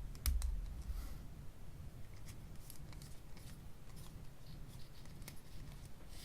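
Small clicks and light handling knocks from a plastic mechanical pencil being handled, with a sharp double click and a low bump just after the start, then scattered faint ticks.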